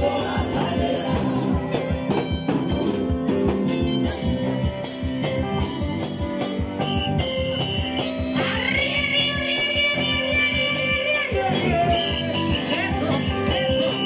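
Church choir singing to a live band, a drum kit keeping a steady beat. Midway through, the voices hold one long note for about three seconds.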